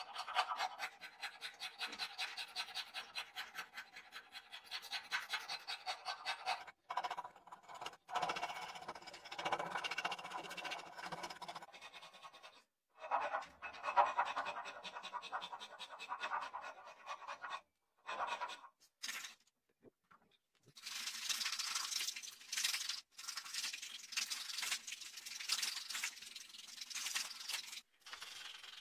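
A steel hand file rasping across a wooden knife handle in quick back-and-forth strokes, about three a second. The strokes come in several bursts broken by short gaps, and turn brighter and hissier in the last third.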